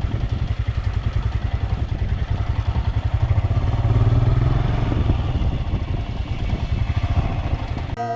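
Motorcycle engine running with a fast, even exhaust pulse; it grows louder for a second or two around the middle, then eases off. Music cuts in right at the end.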